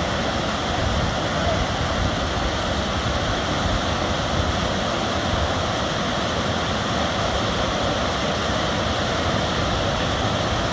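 Water pouring over a river weir, a steady, unbroken rush of falling water.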